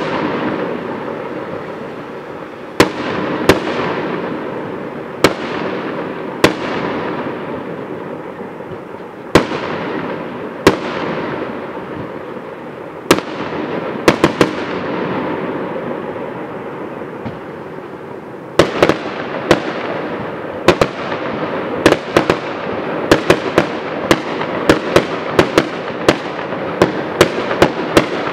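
Aerial firework shells bursting, each sharp bang trailing off over a second or two. The bangs come every one to three seconds at first, then about two-thirds of the way through a rapid volley of several bangs a second sets in.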